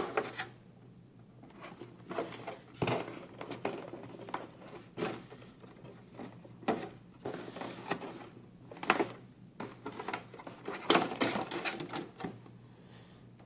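Irregular clicks, knocks and rustles of an unboxed RC car and its parts being handled.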